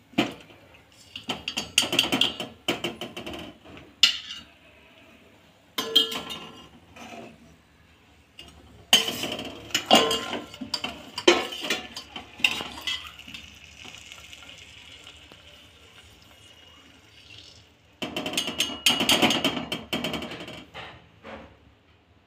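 A metal slotted spoon clinks and scrapes against a steel pot and frying pan in several bursts of clatter as fried chonge pastries are moved from hot oil into sugar syrup. A steady hiss runs for a few seconds in the middle.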